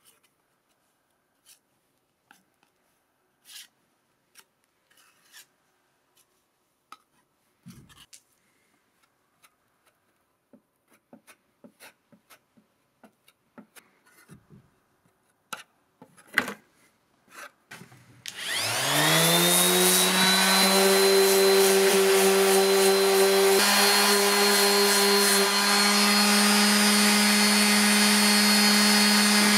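Faint scrapes and taps of a spreader working body filler onto a plastic motorcycle panel; then, about two-thirds of the way in, an electric orbital sander spins up with a rising whine and runs steadily against the panel.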